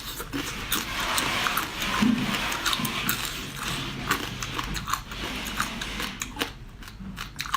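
A person chewing and biting into spicy seafood close to the microphone, with many irregular wet clicks and smacks.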